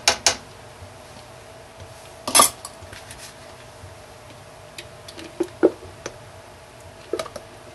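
A spoon, then a spatula, scraping honey out of a plastic tub, with scattered taps and clinks against the tub and the stainless steel pot. The loudest clatter comes about two and a half seconds in, and there are a few smaller knocks later.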